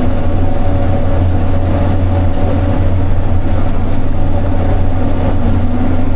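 Combine harvester running steadily while harvesting corn: an even, unbroken low drone with a steady hum above it.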